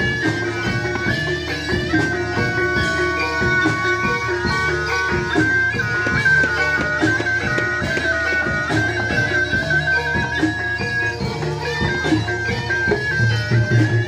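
Traditional Javanese barongan music: a reedy shawm plays a loud melody that steps between held notes, over frequent drum strokes and a low sustained tone.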